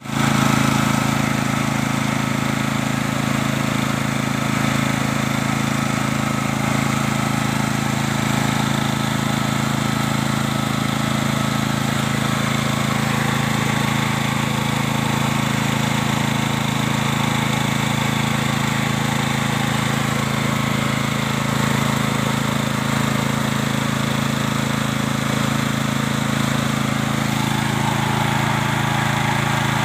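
FTG 7700E petrol generator's 13.5 hp engine running steadily at constant speed.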